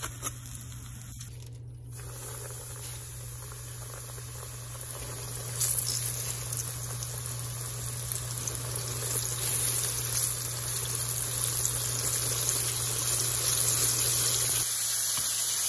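Flour-dredged chicken pieces frying in a pan of hot vegetable oil: a steady bubbling sizzle that grows louder about five and a half seconds in and stays loud.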